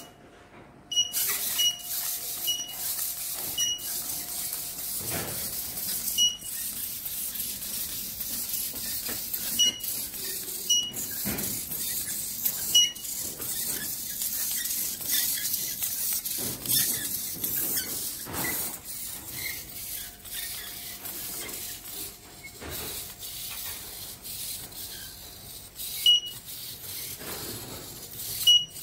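Servo-driven quadruped spider robot walking on a ceramic tile floor: its plastic feet tap and click on the tiles at irregular intervals, some taps with a brief high ring, over a steady hiss.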